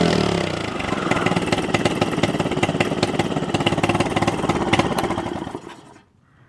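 Honda 2.3 hp air-cooled four-stroke single-cylinder outboard idling with an even firing beat, running well after a carb clean and adjustment. It dies away about five and a half seconds in.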